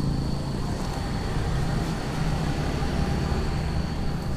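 Steady low rumble of road traffic, with a faint steady high whine running through it.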